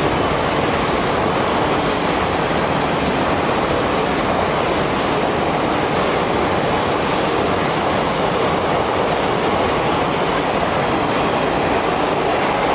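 Indian Railways passenger coaches passing close by at speed: a loud, steady noise of wheels running on the rails.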